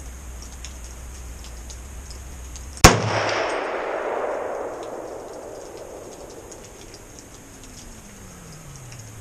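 A single shot from a 300 Blackout pistol with a 10.5-inch barrel, about three seconds in. Its sharp report echoes and dies away over several seconds.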